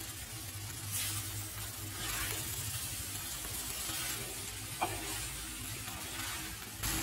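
Wooden spatula stirring cluster bean poriyal in an earthenware pot: soft scraping strokes over a faint sizzle, with one short tap a little under five seconds in.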